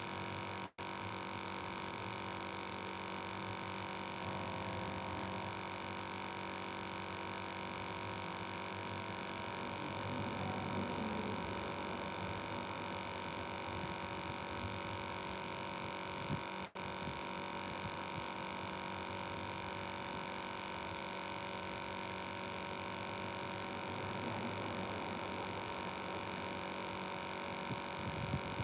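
A steady mechanical hum made of several constant tones, dropping out for an instant twice.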